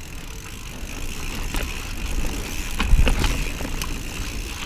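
Mountain bike riding down a dirt trail: a steady low rumble of tyres and wind on the microphone, with a few sharp knocks and rattles from the bike over bumps.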